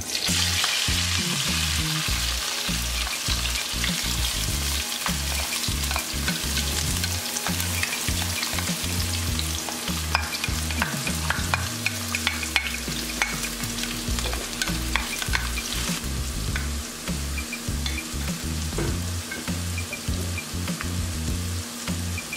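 Chopped onion, tomato, sweet pepper and herbs dropped into hot coconut oil in a nonstick pan, sizzling at once and frying steadily, with many light clicks and scrapes of a utensil working the pan.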